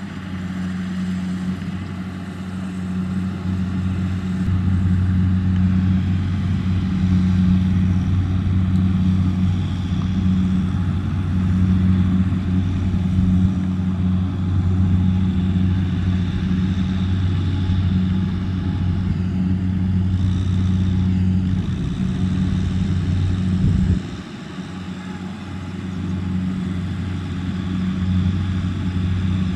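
Kubota M6040SU tractor's diesel engine running steadily under load, pulling a trailer piled with rice sacks over soft paddy ground. The sound drops suddenly near the end, then builds back up.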